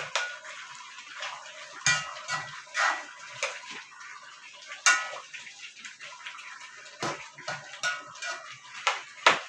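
A spoon scraping and knocking against a pan as chicken pieces in a stew are stirred and turned: irregular clinks and scrapes, with the sharpest knocks about two seconds in, about five seconds in and near the end.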